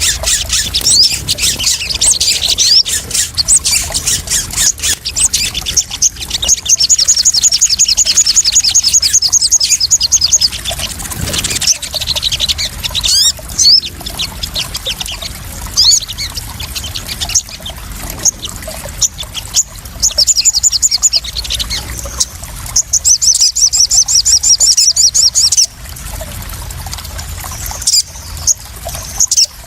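Sogon sunbirds calling: high chirps and fast rattling trills, the longest from about 7 to 10 seconds in and again from about 23 to 25 seconds in. Splashing, pouring water runs underneath as a steady hiss.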